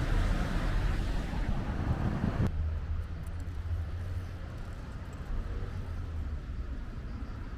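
Town road traffic, cars driving past, which cuts off suddenly about two and a half seconds in. After that only a quieter low rumble is left.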